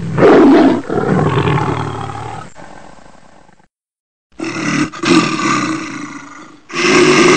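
Big cat roaring: a loud roar at the start that fades away over about three seconds, a moment of dead silence, then more roaring that starts abruptly and swells again near the end.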